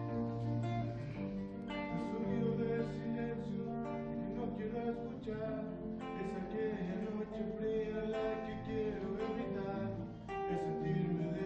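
Acoustic guitar music, with plucked notes and strummed chords.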